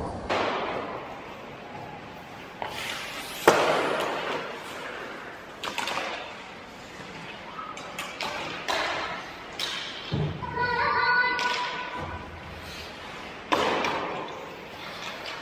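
Ice hockey play on an indoor rink: skate blades scraping and spraying the ice, with sticks and puck clacking and a sharp crack about three and a half seconds in. A player's voice calls out briefly just past the middle.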